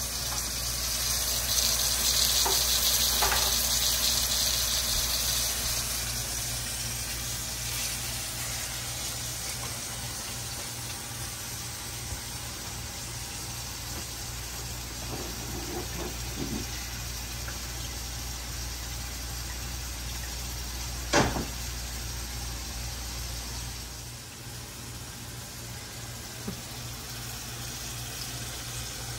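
Pieces of salt cod and soffritto sizzling gently in a frying pan, a steady hiss that is loudest in the first few seconds and then settles lower, over a low steady hum. A single sharp click about 21 seconds in.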